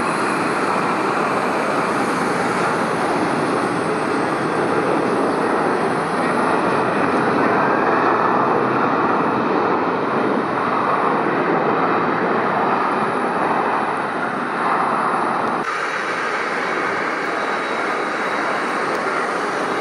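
Jet airliner landing: a steady rush of jet engine noise that swells slightly around the middle and changes abruptly about three-quarters of the way through.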